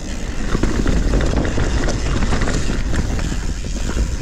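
Mountain bike riding down a rough singletrack trail: a steady rumble of wind on the microphone, with many small knocks and rattles from the tyres and bike over the ground.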